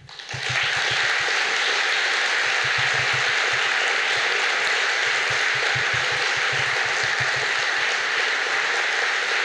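Audience applauding, building up within the first half-second and then holding steady.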